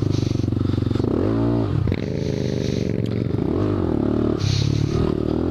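Motorcycle engine running while riding, revving up and easing back off about a second in and again a little past the middle.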